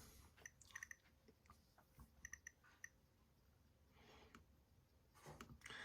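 Near silence with a few faint, short clicks in small clusters, about half a second in and again around two to three seconds in.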